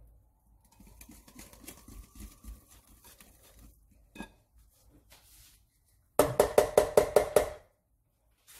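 Wire hand whisk stirring thick chocolate cake batter in a glass bowl: soft, quick clicks at first, then, past the middle, about eight fast, loud ringing clinks of the whisk striking the glass bowl, roughly six a second.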